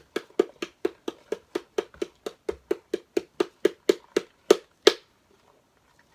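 Slime being stirred and mixed in a container: a quick, even run of wet clicks and slaps, about four a second, ending with two louder strokes just before it stops.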